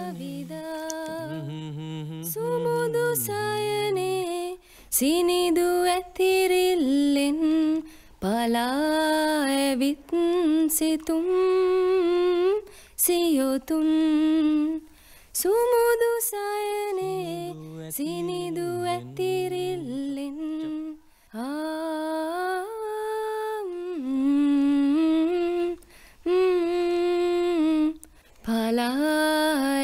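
Wordless singing in a slow, lullaby-like melody, a woman's voice humming, with a lower voice coming in twice.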